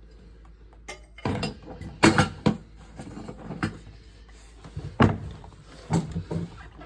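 A series of knocks and clunks, as of parts or tools being handled and set down. The loudest come about two seconds in and again about five seconds in.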